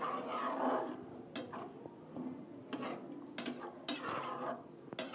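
Metal spatula stirring a watery chana dal and spinach curry in a coated pan: wet scraping and sloshing, with several sharp clinks of the spatula against the pan.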